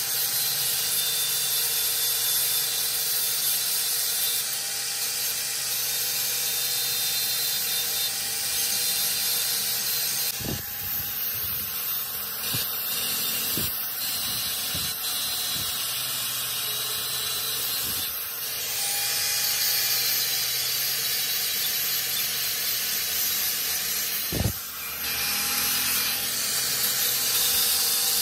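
Angle grinder running steadily, its disc grinding a steel bar with a high hiss and a steady motor whine, with a few brief knocks as the work shifts against the disc.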